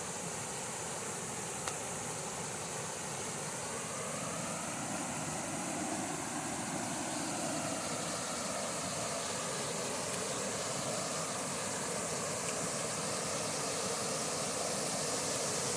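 Waterfall's rushing water: a steady roar of noise, growing slightly louder.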